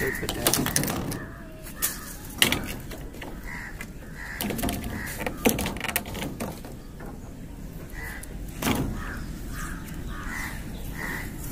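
Crows cawing, scattered single calls and then a quick run of caws in the second half, with a few sharp knocks and clicks in between.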